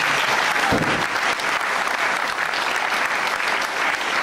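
Theatre audience applauding steadily, a round of clapping for an actor's exit. A stage door shuts with a low thud about a second in.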